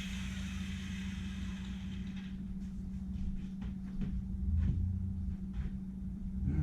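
Light clicks and knocks of tools and parts being handled, over a steady low hum; a hiss stops suddenly about two seconds in.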